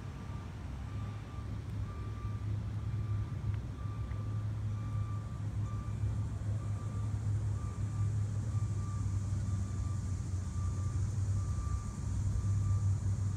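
A steady low hum, like a motor or engine running, with a faint high-pitched beep repeating evenly on top of it.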